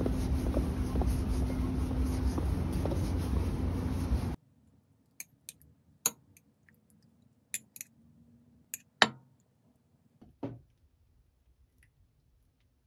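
Steady outdoor rumble with wind on the microphone and a low hum, cut off suddenly after about four seconds. Then a quiet room and a run of sharp clicks and knocks of chopsticks and an eggshell against a ceramic bowl, the loudest knock about nine seconds in.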